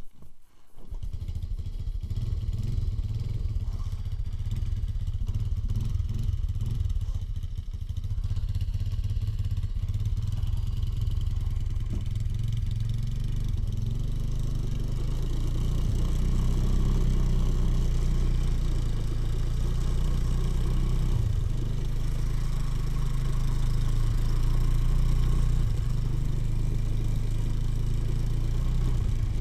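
Two-wheel-drive off-road motorcycle's engine starting about a second in, then running steadily as the bike rides over packed snow, getting a little louder around eight seconds in.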